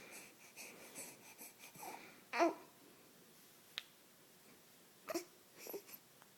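A person hiccuping: a sharp, loud hiccup about two and a half seconds in and two shorter ones near the end, after a run of soft, breathy giggling pulses.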